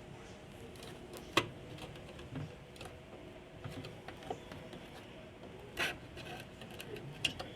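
Scattered small clicks, scrapes and rubbing, as of parts being handled during a repair, with one sharp click about a second and a half in and a few more near the end.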